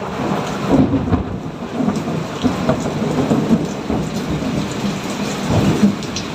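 Thunderstorm: steady rain falling with low rolling thunder, the rumble swelling about a second in and again near the end.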